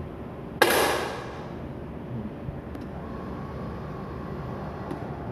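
A single shot from a 10 m match air rifle firing a .177 pellet: one sharp crack about half a second in, ringing briefly in the range, over a faint steady background hum.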